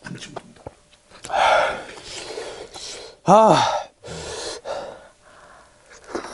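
A man gasping and blowing out hard breaths against the burn of extremely spicy food, with a short pained 'ah' that rises and falls in pitch about three seconds in.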